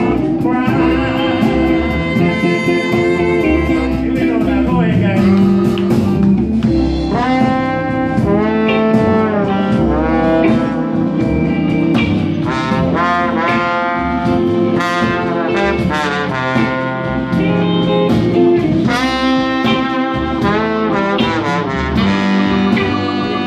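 Live band with a horn section: tenor saxophone and trombone play repeated phrases together over electric guitar and the rhythm section.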